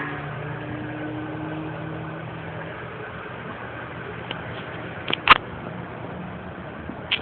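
2011 Dodge Journey engine idling steadily with a cylinder 2 misfire, caused by low compression in that cylinder (110 psi against a normal 150). A few short sharp clicks sound about five seconds in and again near the end.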